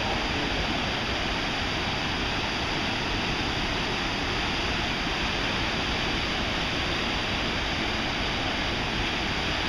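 Steady rush of whitewater pouring down a steep, rocky mountain creek's cascades, holding an even level throughout.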